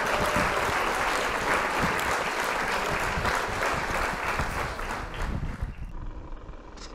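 Small waves lapping and splashing right at a camera sitting at the water line, a dense crackling wash of water that fades away over the last couple of seconds.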